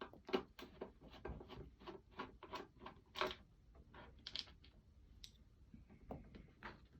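Irregular small clicks and taps as screws are undone by hand from a loudspeaker mount and dropped, metal on plastic.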